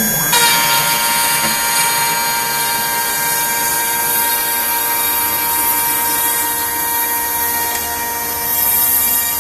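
CNC router spindle running at about 7,000 RPM while its cutter surfaces a UHMW plastic plate at a 70 inches-per-minute feed: a steady, high whine with many tones. It grows fuller abruptly about a third of a second in.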